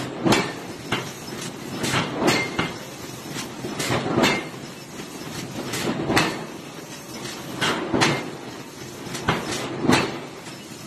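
Irregular metallic knocks and clanks, roughly one every second. Near the end comes a heavy forging-hammer blow on the red-hot iron workpiece.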